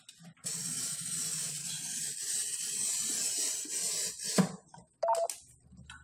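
A pen-style glass cutter's wheel scoring polished black granite in one long, steady, hissing scrape. Then two sharp knocks about half a second apart, the second with a brief ring.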